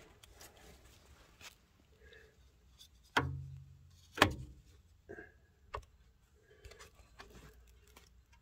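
Faint handling noise with a few sharp knocks and clicks, the loudest about three and four seconds in, the first followed by a short low hum.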